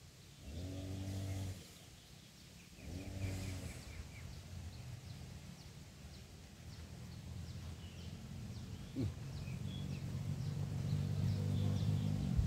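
Three long, low animal calls in the first four seconds, each rising and falling. Then a low steady hum that grows louder toward the end.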